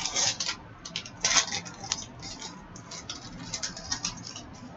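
Hockey trading cards and a foil card-pack wrapper being handled: irregular crinkling and rustling with small clicks, loudest near the start and about a second in.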